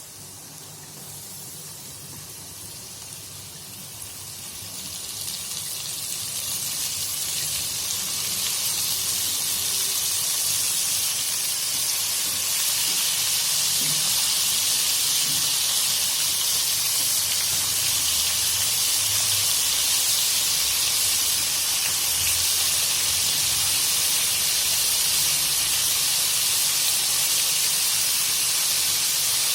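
Flour-coated squid pieces deep-frying in hot oil: a steady sizzle that grows louder over the first ten seconds or so, then holds level.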